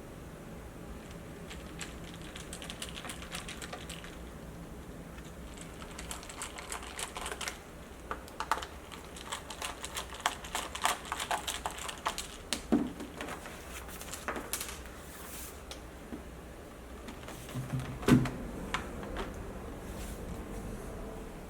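Quick plastic clicks and taps on a Dell Latitude E5540 laptop as it is handled and worked on, with a louder knock about 18 seconds in.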